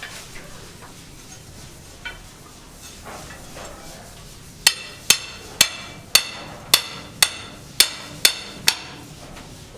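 A hammer striking metal in a steady run of nine blows, about two a second, each with a short metallic ring, starting about halfway through. A single lighter knock comes earlier.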